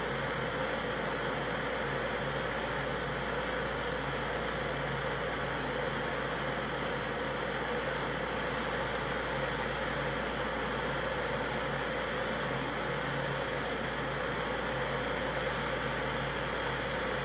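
Handheld torch flame running with a steady hiss, heating the nail of a glass dab rig.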